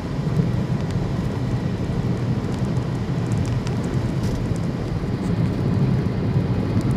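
Car driving through a strong sandstorm, heard from inside the cabin: a steady low rumble of road, engine and wind noise.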